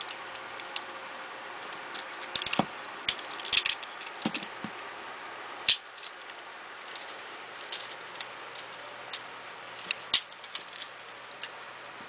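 Hard plastic parts of a Generation 1 Transformers Sandstorm toy clicking and snapping as it is folded by hand from dune buggy into helicopter mode: irregular sharp clicks, a quick cluster a few seconds in and a louder snap about halfway through.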